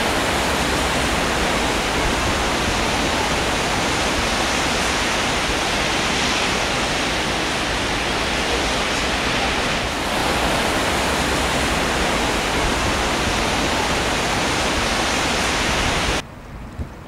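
Steady hiss of heavy rain, a rain sound effect laid under the title, cutting off suddenly near the end.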